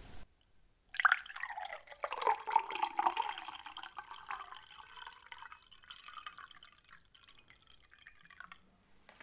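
Close-miked wet mouth sounds: a sharp click about a second in, then a run of wet, drip-like clicks and smacks whose pitch slides down and back up. They grow fainter toward the end.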